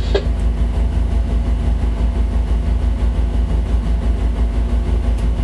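Tugboat's diesel engines running steadily, heard on board: a deep, even drone with a few steady low tones above it.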